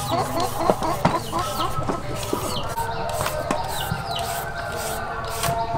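Chickens clucking in a quick run of short repeated calls over the first couple of seconds, then steadier calling. A few sharp knocks of a cleaver on a wooden chopping board come about a second in.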